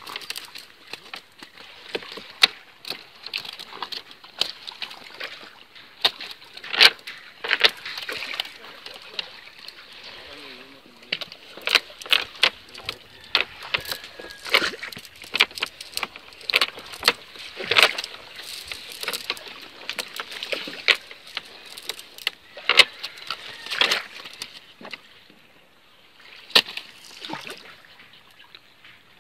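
Wet cast net and caught fish slapping and splashing on the wooden floor of a boat as the fish are shaken and picked out of the mesh: a scattered run of irregular sharp slaps and patters, some louder than others.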